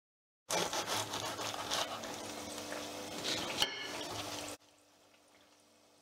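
Hot oil sizzling and crackling in a frying pan around deep-frying stuffed parathas, with a sharp clink a little after three and a half seconds in. The sizzle cuts off abruptly a little after four and a half seconds in, leaving a faint steady hum.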